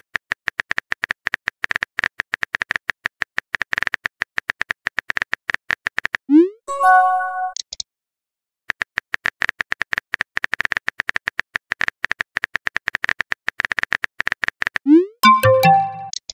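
Chat-app sound effects: rapid keyboard typing clicks for about six seconds, then a short rising swoosh and a few-note chime as a message appears. A second run of typing clicks ends in another swoosh and chime near the end.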